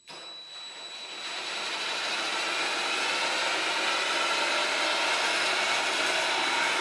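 DeWALT cordless drill spinning a lawnmower blade on a dynamic balancing rig: the motor starts suddenly, gets louder over about two seconds as the blade comes up to speed, then runs steady. This is a balancing test run, spinning the blade so a sensor can measure its remaining unbalance.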